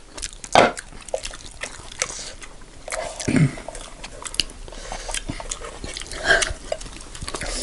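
Close-miked eating sounds of rice and lamb curry being eaten by hand: chewing and lip smacks with scattered small clicks, and a short hum of voice about three seconds in.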